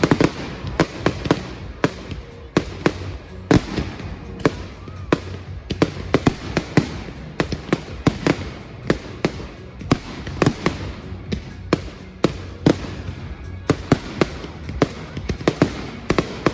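Fireworks going off in a rapid, irregular series of sharp bangs, about two to three a second, without a break.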